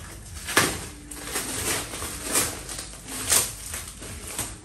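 Thin plastic wrapping bag crinkling and rustling in irregular bursts as a football boot is pulled out of it.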